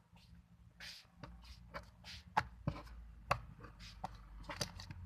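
Homemade glue slime being squished and kneaded by hand, giving irregular small wet clicks and pops, a couple of them louder about two and a half and three and a half seconds in.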